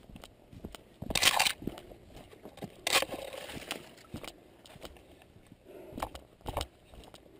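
Footsteps through forest undergrowth: twigs and dry leaves crunching underfoot, with branches and foliage brushing past the head-mounted camera in two louder rustles about one and three seconds in, and a couple of sharp twig cracks near the end.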